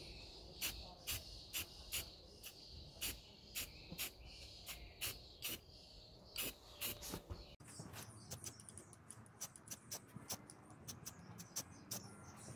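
Aerosol can of Rust-Oleum semi-gloss black spray paint hissing in short bursts, about two a second, as a light first coat is dusted onto a wheel hub. About halfway through the bursts become shorter and come faster.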